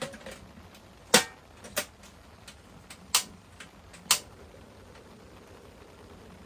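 Four sharp knocks at uneven intervals, the first and loudest about a second in, with a few fainter ticks between them, over a faint steady hiss.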